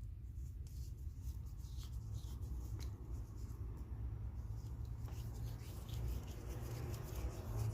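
Faint light scraping and small metal clicks as a Crescent double-ended adjustable wrench is reassembled, its thumb screw turned and its jaw worked in the rails. A steady low hum runs underneath.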